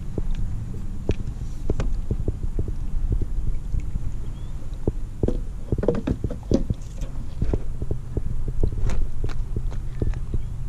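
Irregular knocks, taps and clatter from handling gear and a fish aboard a plastic kayak, busiest about halfway through, over a steady low rumble.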